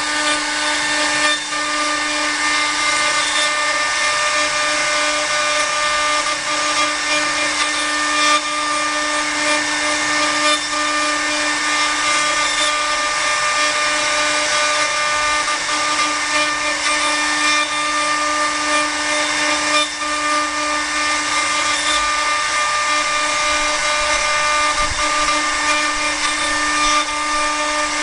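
Multi-head 4-axis CNC wood router carving a wooden workpiece on its rotary axis. The high-speed spindles give a steady whine over a constant cutting noise from the bits in the wood.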